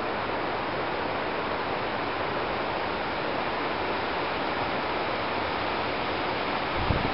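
Steady rushing of an alpine mountain stream: an even, unbroken hiss of flowing water. Right at the end it gives way to wind gusts buffeting the microphone.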